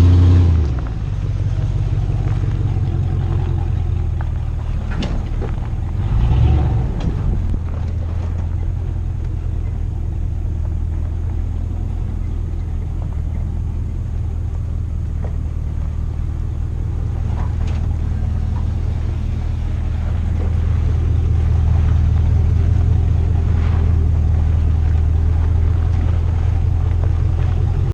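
Pickup truck engine running steadily while the truck drives along a rough dirt trail. There are two brief louder swells, one at the start and one about six seconds in.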